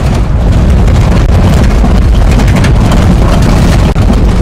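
Vehicle driving over a rough dirt road: a loud, steady rumble with constant jolts and rattles, and wind buffeting the microphone.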